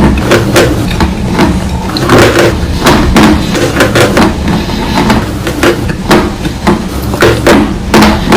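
Dry chalk being bitten and chewed close to the microphone, a quick, irregular run of loud crisp crunches, about two or three a second.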